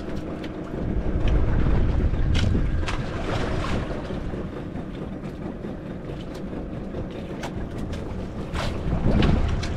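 Wind buffeting the microphone and water washing against a small fishing boat at sea. The low rumble swells about a second in and again near the end, with scattered light clicks.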